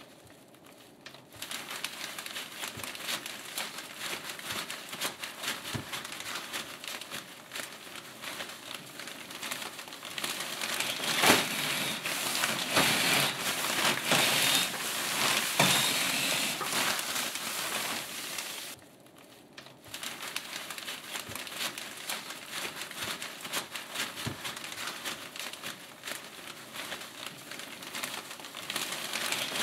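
Thin 2 mil clear polyethylene bag crinkling and rustling continuously as it is handled and sweep rods are worked through it, with a few sharper knocks. It pauses briefly near the start and again about two-thirds of the way through, and is loudest in the middle stretch.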